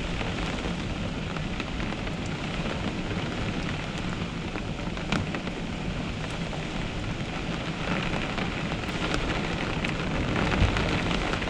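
Steady rain falling in a storm, with scattered sharp ticks of drops striking and a low rumble underneath.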